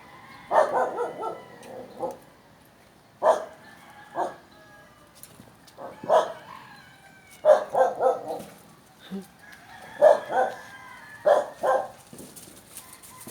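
A dog barking in short bursts, single barks and quick runs of two or three, repeated about every one to three seconds.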